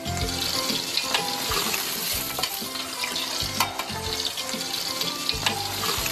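Diced pigeon breast frying in hot oil in a wok with a steady sizzle, the quick pass through oil (过油) that par-fries the meat. A few sharp knocks sound over the sizzle.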